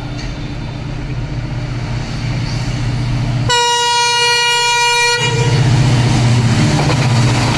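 WDP4D diesel-electric locomotive's EMD two-stroke V16 engine approaching at speed, its low drone growing louder as it nears. About halfway through, its horn sounds one single-note blast lasting under two seconds.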